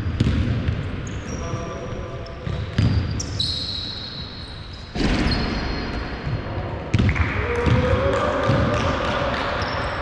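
Basketball bouncing on a hardwood court in a large sports hall, with sneakers squeaking and players' shoes thudding on the floor; there are also a few shouts from the players.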